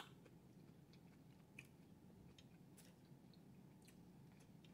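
Faint chewing and mouth sounds from eating crispy fried red snapper, with small scattered clicks and crunches.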